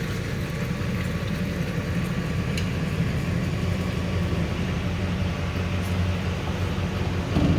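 Truck engine running steadily, a low, even engine sound.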